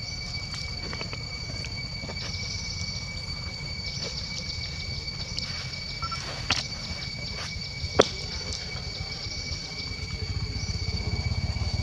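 Steady, high-pitched insect drone made of two held tones, with scattered soft ticks and a single sharp click about eight seconds in; a low rumble builds near the end.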